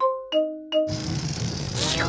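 Three bright ringing notes tapped on a toy xylophone in quick succession. A little under a second in, a rushing whirr takes over and sweeps upward in pitch near the end.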